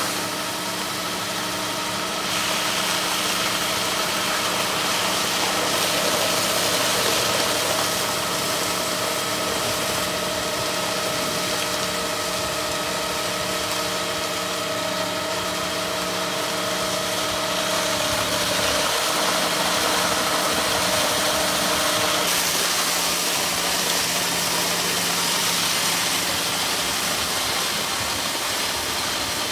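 Tractor engine running steadily under load, driving a SlurryKat vacuum tanker's high-pressure pump, with the steady hiss of the pump's water cannon jet. The engine's tone shifts slightly about two-thirds of the way through.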